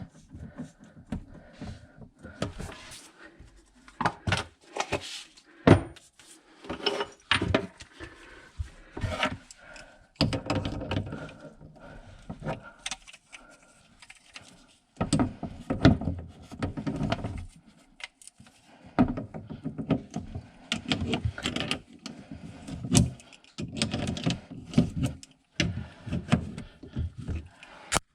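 Hand tools clinking, knocking and scraping against metal pipework in irregular bursts while an old pipe is worked loose and removed.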